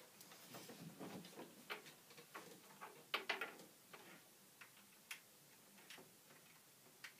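Faint, irregular small clicks and taps of a cable and its connector being handled and plugged in to hook an iPad up to a computer, with a few sharper clicks a little past three seconds in.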